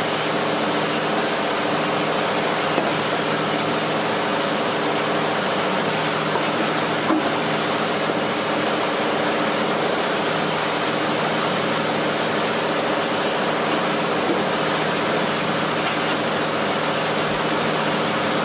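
A motor running steadily, a constant drone with hiss and a low hum, and a couple of faint clicks.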